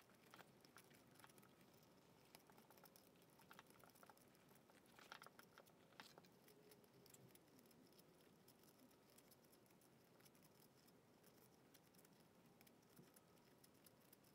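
Very faint scratchy ticking and rustling of copper magnet wire being unwound and pulled by gloved hands out of a sump pump motor's stator coils, with a slightly louder cluster of clicks about five to six seconds in.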